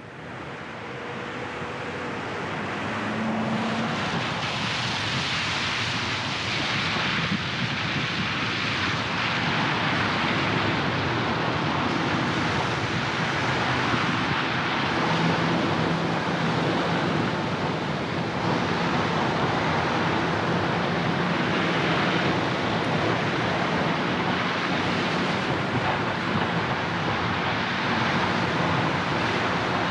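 Car driving through city traffic on a rain-wet road: a steady hiss of tyres on wet asphalt over a low engine hum, fading up over the first few seconds.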